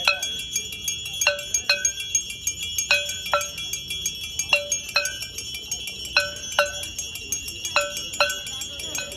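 Brass temple bells ringing for aarti: a small hand bell rings without a break while a larger bell is struck over and over, often two strokes close together, about every second and a half.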